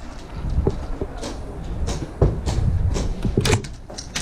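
Irregular sharp clicks and knocks of an airsoft skirmish, from gunfire and BBs ricocheting off cover, with a louder knock about two seconds in and a quick cluster of clicks over a second later.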